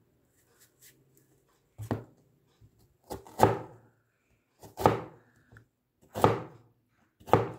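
Stainless steel cleaver cutting down through an onion and striking a plastic chopping board: five slow, sharp chops a little over a second apart, the second a quick double.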